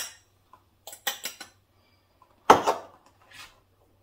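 Kitchen utensils and cookware clinking and knocking while salt is added to the sauce. A few light taps come about a second in, and one louder knock rings briefly about two and a half seconds in.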